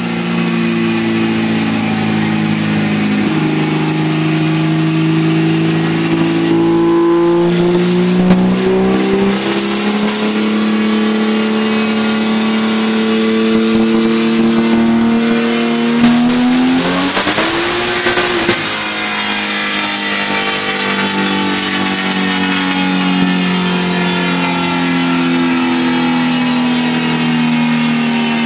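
Twin-turbo Porsche 911 Turbo flat-six running hard on a chassis dyno. The engine note climbs slowly through a long pull, then climbs quickly with a loud rush of noise for a couple of seconds. About eighteen seconds in the pitch drops sharply, and the engine carries on at a lower steady note. A high whistle rises and falls about nine to ten seconds in.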